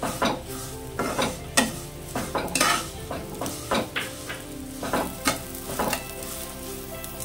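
A steel spatula stirring and scraping vermicelli, cashews and raisins around a kadai as they fry in ghee, with a sizzle underneath. The scrapes come in quick strokes, one or two a second, as the vermicelli is browned on a low flame.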